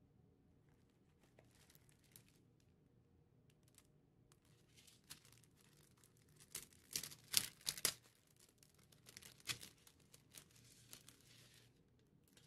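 Clear plastic packaging crinkling and rustling as it is handled and opened, faint at first, with a burst of sharp crackles about halfway through and another a little later.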